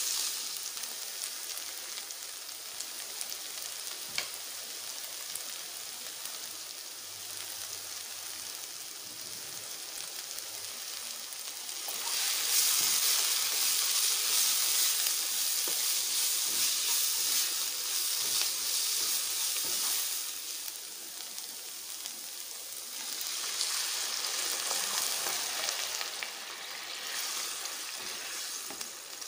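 Chopped onions, capsicum and tomatoes sizzling in oil in a nonstick kadai while a spatula stirs them, with light scraping clicks. The sizzle grows louder about twelve seconds in for some eight seconds, and swells again briefly later.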